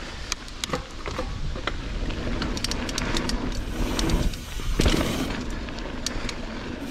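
Mountain bike rolling down a dirt trail: a steady rumble of tyres on dirt and rock, with many sharp rattles and clicks from the bike, and wind buffeting the microphone. A louder clatter comes about five seconds in.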